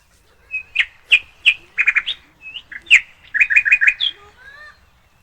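A bird chirping close by: a run of short, sharp chirps, with two quick strings of four or five notes, one about two seconds in and one near the end.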